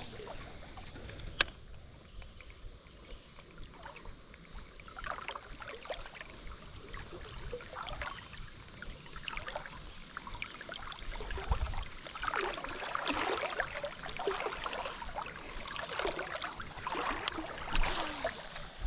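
Water gurgling and sloshing, busier in the second half, with a few sharp clicks.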